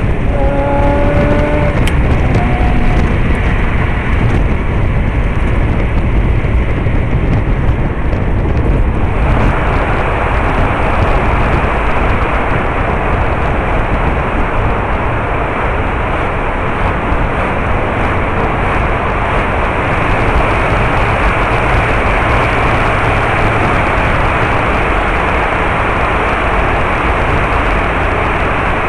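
Steady road noise of a car travelling on an expressway: a continuous low rumble of tyres and wind, with a louder, brighter hiss setting in about nine seconds in.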